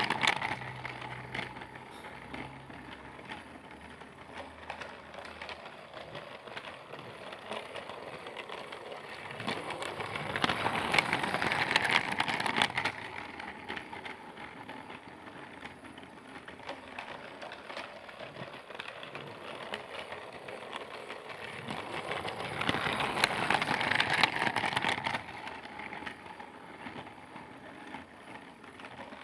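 Motorized Percy toy train running around a looped track, a steady small rattling and clicking that swells louder as it passes close, about every twelve seconds.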